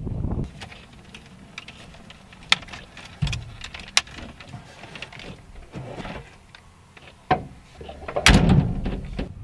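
Handling noises in a car cab: scattered clicks and knocks, with a louder thump and rustle near the end.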